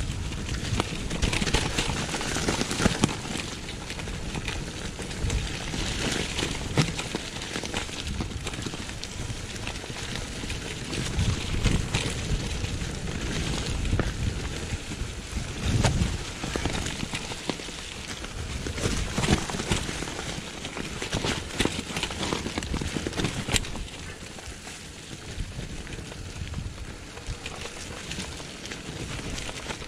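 Mountain bike descending a dry, leaf-covered dirt trail: the tyres crackle and rustle over the leaves, with sharp clicks and knocks from the bike over bumps and a low rumble of wind on the microphone that swells and fades.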